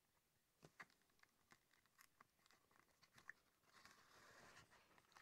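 Faint two-needle saddle stitching of leather by hand: scattered light ticks as the needles and thread pass through the punched holes, then, about four seconds in, a rasp of about a second as the thread is drawn tight through the leather.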